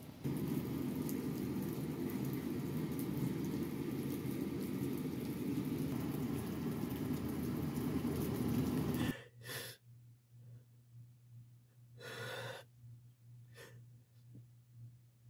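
Steady rain falling around a covered porch, a loud even rush that stops abruptly about nine seconds in. Then, over a low steady hum, a crying woman sniffs and takes a few shaky, gasping breaths.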